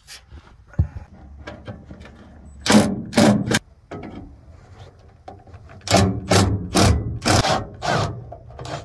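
Cordless impact driver hammering in short trigger bursts on screws in rusty truck sheet metal: three quick bursts about three seconds in, then about six more in quick succession near the end.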